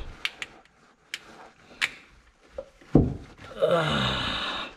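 Sharp clicks and one heavy thump of metal parts being handled as the old, screwdriver-punctured oil filter is worked off a Yamaha personal watercraft engine, followed near the end by about a second of rasping noise.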